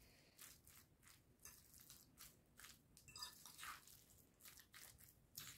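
Faint, soft squelching of salad being mixed by hand with mayonnaise in a glass bowl, in irregular short strokes two or three times a second.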